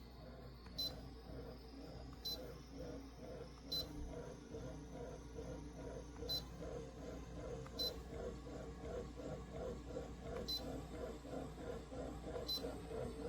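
Electric under-desk elliptical pedal exerciser running with a rhythmic cycling whir that grows stronger in the second half, with seven short high-pitched beeps from the machine along the way.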